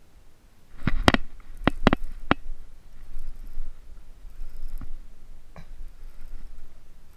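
Sharp clicks and knocks from a baitcasting reel and rod being handled: a quick cluster of four or five about a second in, then two fainter ones later.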